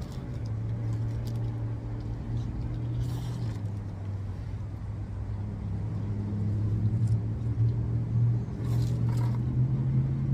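Steady low hum of a car engine running, with a few short rustling noises about three seconds in and again near the end.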